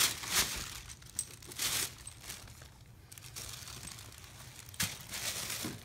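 Paper sheet on a medical exam table crinkling in several short rustles as a baby shifts and kicks on it.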